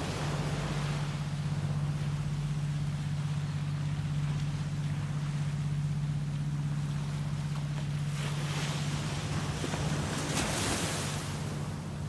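Small ocean waves breaking and washing up a sandy beach, with the loudest wash of surf about nine to eleven seconds in. A steady low hum runs underneath.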